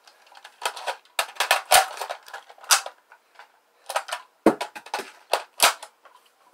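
Airsoft M16 replica being handled in a reload, its magazine and parts worked by hand: an irregular series of sharp clicks and clacks, some in quick clusters.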